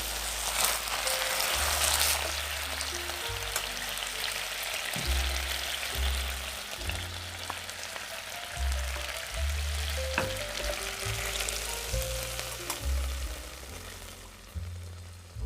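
Beef steak sizzling in a hot frying pan, the sizzle dying down near the end, over background music with a stepped bass line.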